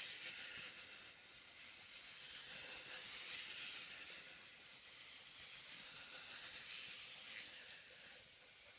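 Faint steady hiss of background noise, with no distinct sounds standing out.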